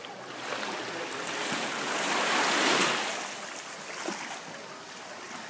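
Sea water washing in the rocky cove: a hiss that swells to a peak about two and a half seconds in and fades again.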